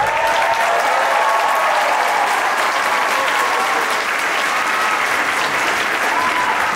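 Theatre audience applauding and cheering at the end of a stage performance: steady clapping with shouts rising above it.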